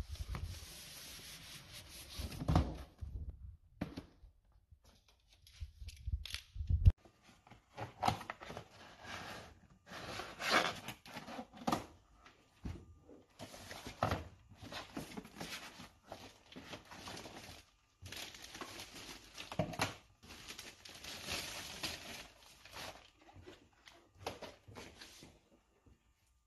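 A cardboard shipping box being opened and unpacked by hand: a blade slitting the packing tape, cardboard flaps and inserts rubbing and tearing, and plastic wrapping crinkling, in irregular bursts with short pauses and a few knocks.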